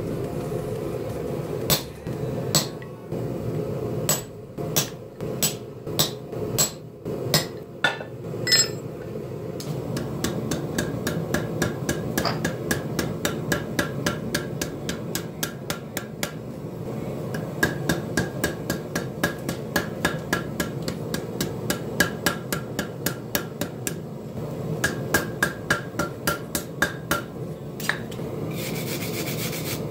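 Hand hammer striking red-hot steel on an anvil horn while forging a bottle opener: a string of heavy, spaced blows in the first several seconds, then runs of quicker, lighter strikes, over a steady low rumble.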